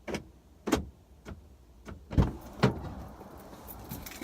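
Car sounds: four short clicks, then two heavier thumps a little over two seconds in, followed by a low rumble, like car door handles and doors as people get in.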